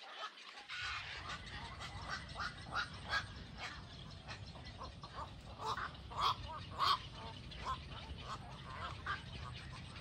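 A colony of waterbirds roosting in island trees, calling: many short calls overlapping, with a few louder ones a little past the middle, over a steady low rumble.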